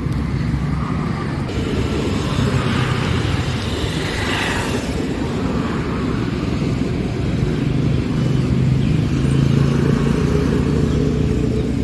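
Steady low rumble of motor-vehicle engines and road traffic, with a hissy swell about two to five seconds in as a vehicle passes.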